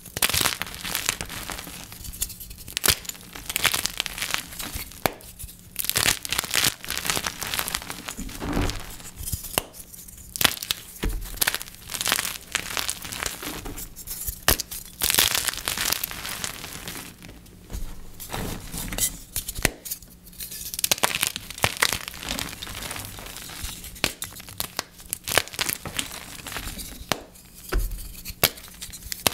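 Dip-dyed gym chalk blocks being crushed, crunching and crumbling in irregular bursts of crackling with sharp snaps.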